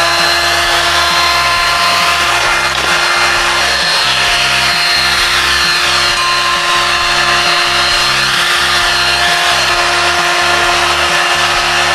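Electric heat gun running steadily: a rush of blown air with a constant motor whine, heating a polycarbonate windscreen frame to soften it for bending.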